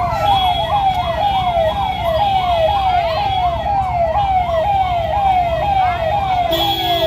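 Ambulance siren sounding in a fast repeating cycle, each sweep rising quickly and falling more slowly, about three times a second, over the low rumble of traffic.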